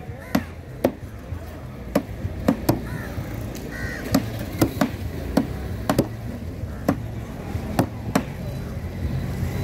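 A heavy curved fish knife chops through a flathead fish's body and strikes a thick wooden chopping board. The sharp knocks come unevenly, about one or two a second.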